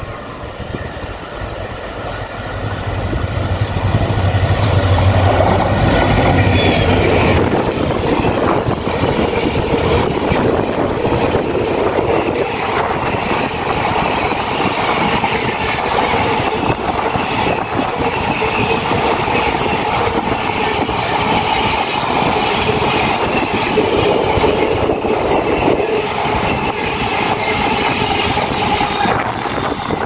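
An express train hauled by a WDP4 diesel-electric locomotive passes at speed. The locomotive's EMD two-stroke diesel engine drones low for a few seconds about three seconds in. The coaches then rush past with a continuous clatter of wheels over the rail joints.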